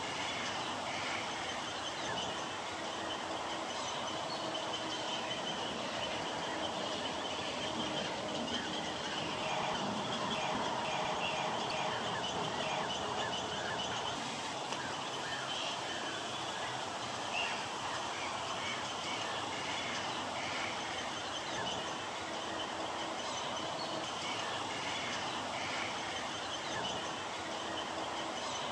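Many short bird calls chattering over a steady outdoor hiss.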